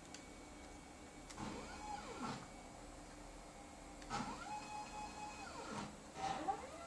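Stepper motors of a homemade CNC machine driving its axes, three moves in a row. Each move whines rising in pitch as it speeds up and falling as it slows, and the middle move holds a steady tone in between.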